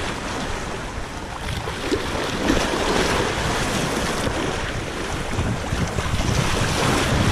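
Choppy sea waves washing at the shore, with wind buffeting the microphone in a steady rush.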